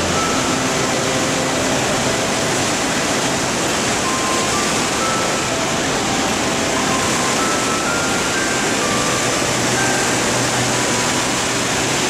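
Ryuzu Falls, a wide cascade of white water, rushing over its rock slopes: a loud, even rush of falling water.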